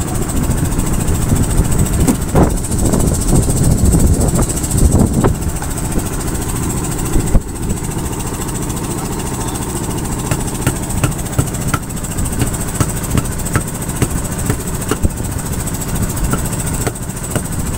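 A boat's engine running steadily, with scattered light clicks and knocks over it.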